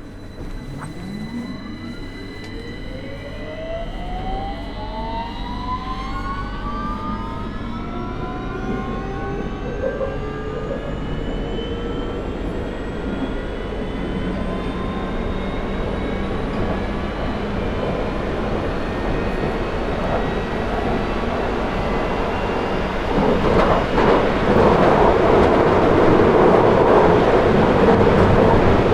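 London Underground 2009 Stock (Bombardier Movia) train accelerating away from a station, heard on board: the traction motors whine in several tones that climb steadily in pitch. Wheel and tunnel running noise builds beneath them and grows louder near the end.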